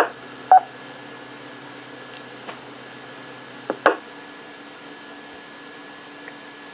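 2-metre amateur radio repeater channel between transmissions: a steady low hiss with a faint hum, broken by a short beep about half a second in and a couple of clicks near four seconds.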